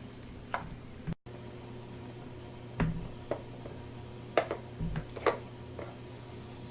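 Scattered light clicks and taps of plastic Play-Doh playset pieces being handled, fitted and set down, about eight in all, over a faint steady low hum.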